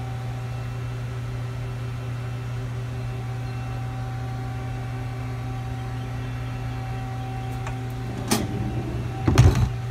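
Steady hum of a powered-up Hyundai Hit-160M CNC lathe idling, a low drone with a few held tones over it. Near the end comes a sharp knock, then a louder clattering thump as the machine's sliding steel door is handled.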